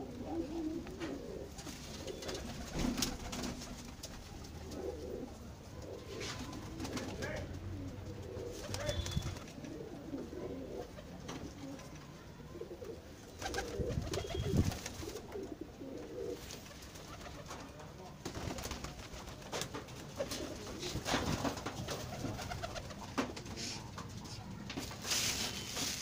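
Domestic pigeons cooing repeatedly in low, wavering calls, with scattered short clicks and knocks.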